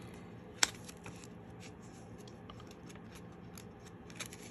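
Hands handling clear plastic coin sleeves and packaging: one sharp click about half a second in, then faint scattered ticks and rustles.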